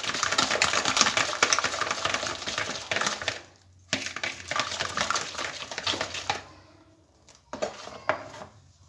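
Cake batter of eggs, sugar, oil and citrus juice being beaten in a mixing bowl: a fast, dense clatter of the beaters against the bowl, stopping briefly after about three and a half seconds, resuming, and dying away after about six seconds with a short burst near the end.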